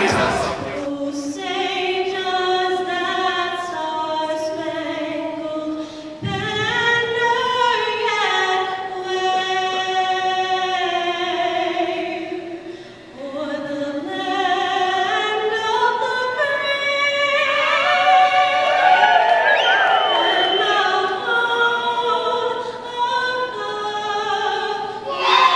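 A woman singing the national anthem solo and unaccompanied over the arena's sound system, her long held notes echoing around the hall. The crowd starts to cheer at the very end.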